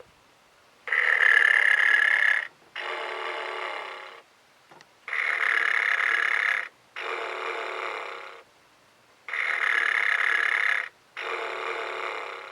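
Vintage Green Trading snoring teddy bear's battery-powered sound box playing its snore loop: three cycles about four seconds apart, each a loud snore followed closely by a quieter breathing sound.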